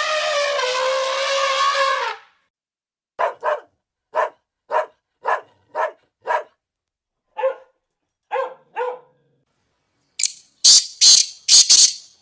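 A long pitched call opens the sound. A dog then barks about a dozen short times, often in quick pairs. A few sharp, high-pitched bursts follow near the end.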